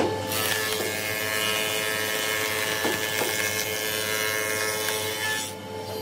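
Stationary belt sander sanding the face of a thin wood panel. An even abrasive hiss starts just after the beginning and stops about five and a half seconds in, over the steady hum of the running machine.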